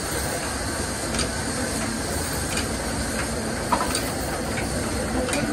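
Sawmill machinery running steadily with a low rumble and hum, not yet cutting. A few light knocks and clacks come through it as the log is handled on the carriage.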